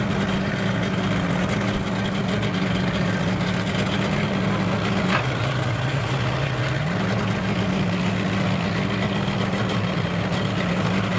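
Outboard motor idling with a steady hum. About five seconds in, the pitch drops with a faint click, stays low for under two seconds, then rises back to the earlier idle.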